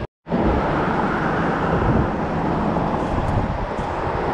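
Steady rushing outdoor noise with no distinct events, cut off by a brief dropout right at the start.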